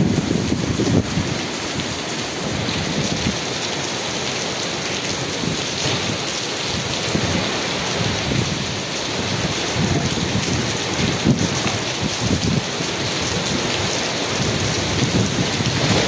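Steady heavy rain hissing on wet brick paving and tree leaves, with low rumbling swells that come and go from wind gusting over the microphone.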